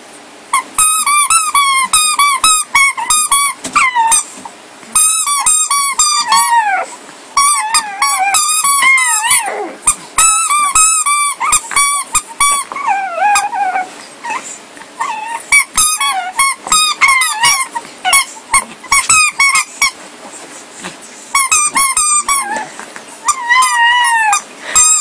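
Puppy squealing at play: runs of high, wavering squeals, several a second, in bouts with short pauses between them.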